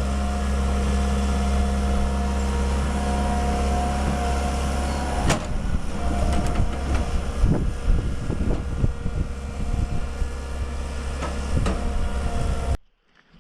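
Heavy diesel engine running steadily, with a sharp knock about five seconds in and then a run of irregular metallic clanks and knocks. The sound cuts off abruptly near the end.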